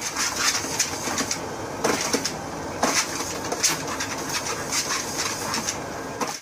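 Treadmill belt running with a dog's paws tapping on it at irregular intervals over a steady hiss.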